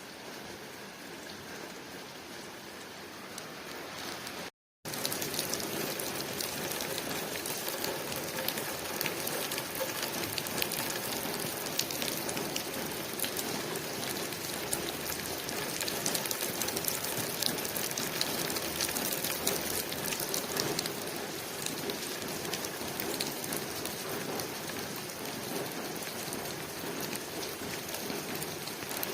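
Steady rain falling on window glass, an even hiss of many small drop ticks. About four and a half seconds in, it cuts out for a split second and comes back louder and denser.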